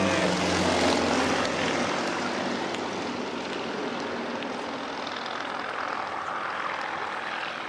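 Propeller-driven aerobatic plane flying past, its engine and propeller noise slowly fading as it moves away.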